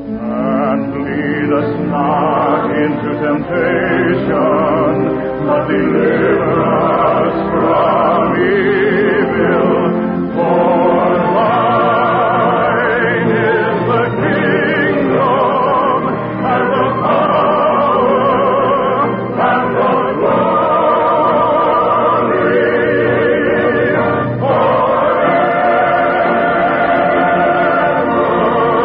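A choir singing with musical accompaniment, many voices with vibrato, heard as an old narrow-band radio broadcast recording with no high treble.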